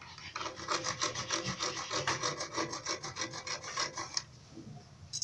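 A saw cutting through PVC water pipe in fast, even back-and-forth strokes, stopping a little after four seconds in.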